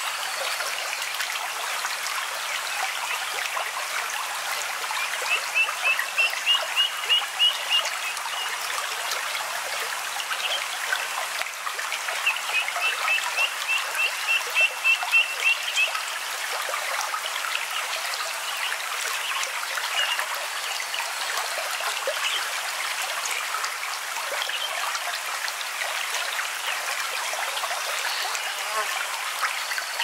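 Steady babble of running water, with a bird calling twice in runs of quick, high chirps, about four a second, each run lasting a few seconds.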